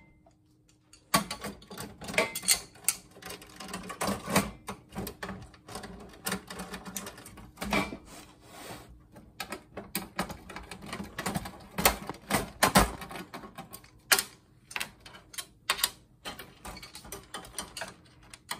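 Dense, irregular clicking, tapping and scraping of hand tools against the plastic and metal parts of an old monitor being pried apart, with a few louder knocks.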